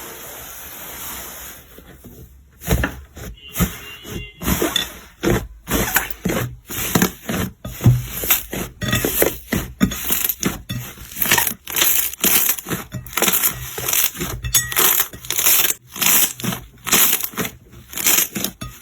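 Slime being squeezed and pressed by hand, crackling and crunching in short, sharp pops about twice a second from about three seconds in, after a softer steady rustle at the start.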